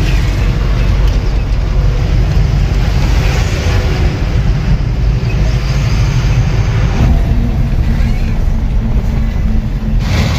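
Steady low engine and road rumble inside a moving truck's cab on a highway.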